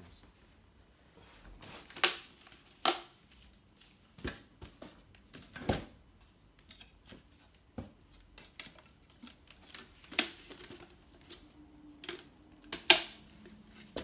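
Irregular sharp clacks and knocks, five loud ones among many smaller clicks, as the unpacked air conditioner accessories and packaging are handled.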